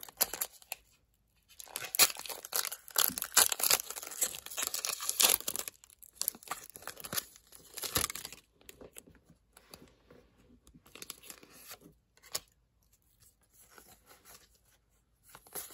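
Foil Pokémon booster pack wrapper being torn open by hand, loud crinkling and tearing for several seconds. After that comes a sharp click and softer rustling as the cards are slid out of the pack and handled.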